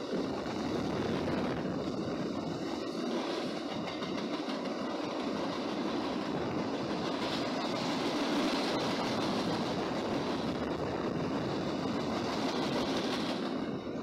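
Mixed freight train cars (boxcars, covered hoppers, a tank car) rolling past: a steady, continuous rolling noise of steel wheels on the rails.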